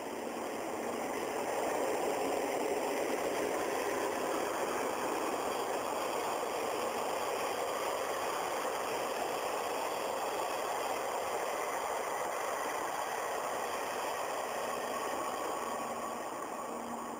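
EF65 electric locomotive hauling a train set past on the rails: a steady rumble of wheels and running gear that swells over the first couple of seconds and eases off near the end.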